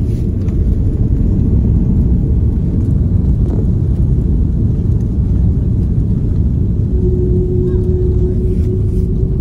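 Steady low rumble of an airliner rolling along the ground, heard from inside the passenger cabin. A thin steady hum joins about seven seconds in.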